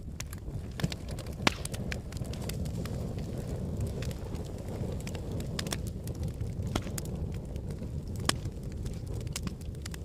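Wood and paper fire burning in a brazier: a steady low rumble of flames with scattered crackles and pops, the sharpest about a second and a half in and another near the end.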